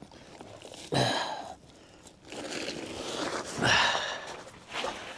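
Plastic tarpaulin rustling and crinkling as it is pulled back off a covered van, louder about a second in and again near four seconds, with footsteps crunching on gravel.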